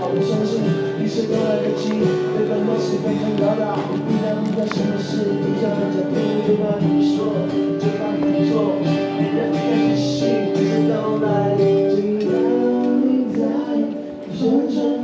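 Music: a man singing a slow song with long held notes over guitar accompaniment.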